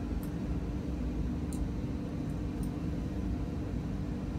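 Steady low background hum, with a few faint, short high ticks.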